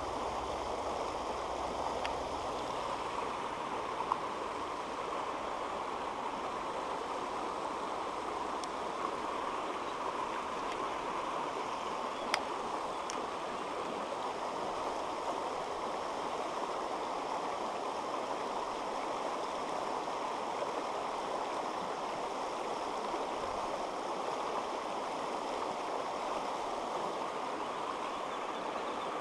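Shallow stream rushing over rocks in riffles, a steady even water noise. Two brief clicks stand out over it, about four seconds in and again near the middle.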